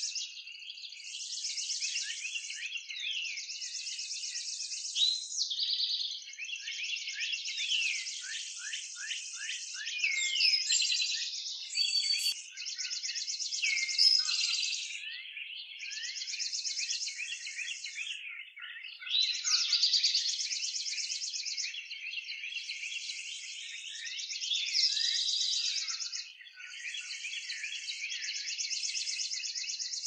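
Dense songbird chorus, many songs overlapping: quick chirps and sliding whistles, with repeated high buzzy trills that each last a second or two.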